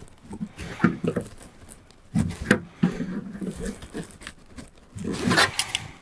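Painted sheet-metal roofing being bent and pulled into a folded corner with pliers: irregular creaks, clicks and knocks of the metal, with a short scraping rustle about five seconds in.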